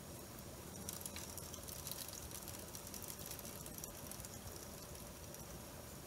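Faint running noise of a Technics RS-TR265 cassette deck playing a tape, its transport turning smoothly on newly replaced drive belts, with a light crackly hiss for a few seconds starting about a second in.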